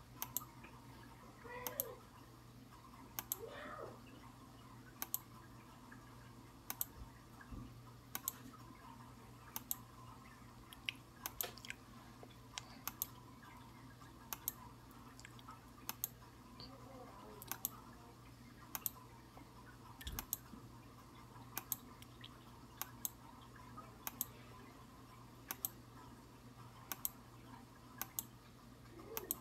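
Sharp clicks repeating evenly about every second and a half, often as quick double clicks, over a low steady hum.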